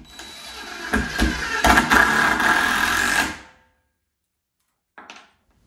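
Cordless power driver running a screw through a 2x4 wall's bottom plate into the floor, building up over the first second and stopping after about three and a half seconds. A brief short burst from the driver follows near the end.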